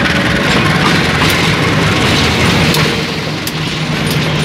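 A KAI diesel locomotive passing close by with a steady engine drone, followed by ballast hopper wagons rolling past with their wheels clicking over the rails.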